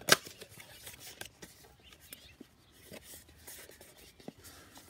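Chocolate bar packaging being handled and opened by hand: a sharp snap right at the start, then scattered small clicks and scraping, rustling noises.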